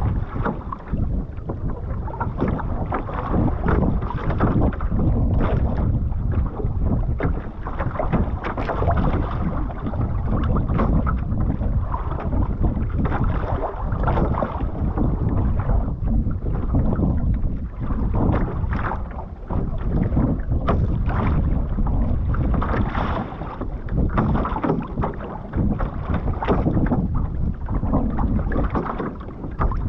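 Water rushing and splashing against the hull and outrigger float of a one-person outrigger canoe being paddled downwind through chop, in irregular splashes, with wind buffeting the microphone.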